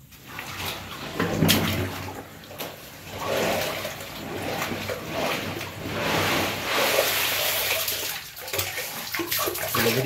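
Sewage water sloshing and splashing as a worker scoops sludge and debris out of a blocked manhole by hand, in uneven surges that rise and fall.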